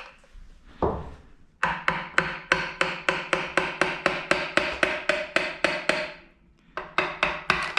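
Hammer rapidly striking the old oil pump on a Toyota 1JZ engine to knock it loose, about four or five ringing metal blows a second, with a short pause before a few more blows near the end. The pump is being replaced, so it is hit hard with no care for damage.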